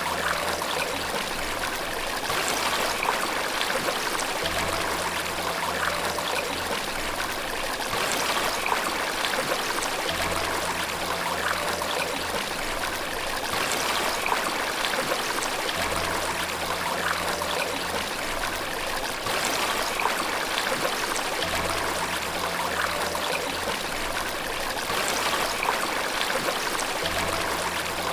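Steady rush of a stream or waterfall. Soft, low sustained music notes sit faintly underneath and change every few seconds.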